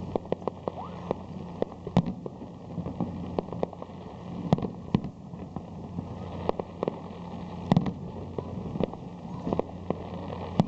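Aerial fireworks shells bursting in an irregular run of sharp bangs and pops, a few each second, with the loudest bangs about two seconds in and near eight seconds in. A steady low hum sits underneath.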